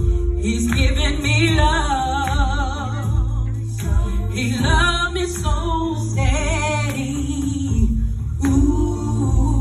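A woman singing a gospel song into a microphone with instrumental accompaniment, amplified through a PA, her held notes carrying a wide vibrato over a heavy bass line.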